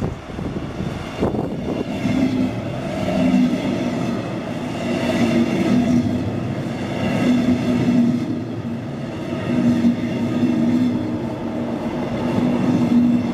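A double-deck Regional-Express train arriving at the platform, led by its cab car, its coaches rolling slowly past close by. The sound builds over the first two seconds, with wheel and rail noise, an on-and-off low hum and high whining tones as the train slows to stop.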